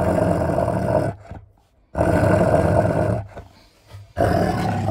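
German Shepherd growling three times in low, rough growls of about a second each while guarding the bone she is chewing against a hand at her muzzle: food aggression.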